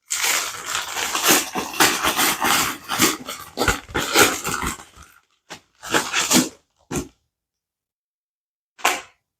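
A plastic mailer package being cut and torn open, with a long run of loud ripping and crinkling, then a few short rustles of the packaging.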